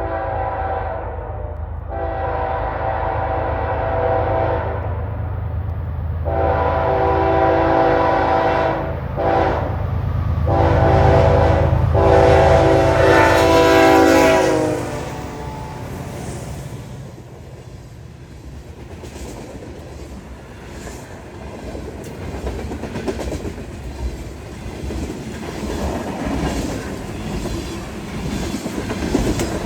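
Locomotive horn on a BNSF freight train led by a GE ES44AC, played as a horn show over the rumble of the diesel units. It gives a string of long blasts with two short toots between them and ends in an extra-long blast through the grade crossing, cutting off about fifteen seconds in. The freight cars then roll by with clickety-clack of the wheels on the rails.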